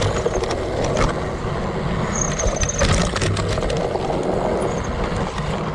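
Fat-tire mountain bike rolling fast over a rooty dirt trail: a steady tyre rumble with frequent knocks and rattles of the bike over roots and bumps, and a brief high squeak about two seconds in.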